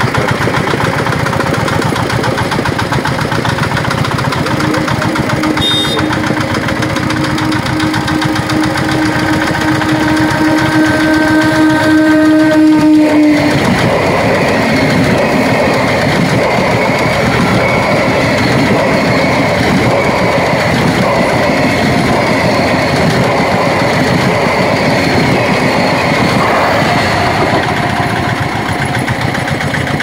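Electric multiple unit local train sounding one long steady horn blast of about nine seconds, starting a few seconds in, then passing at speed with a loud, steady rush of wheels on the rails.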